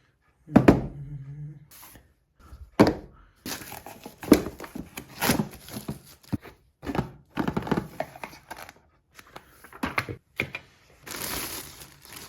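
Unboxing handling: a box and its packaging being knocked, opened and rustled, giving an irregular run of sharp knocks and taps mixed with short rustling and crinkling.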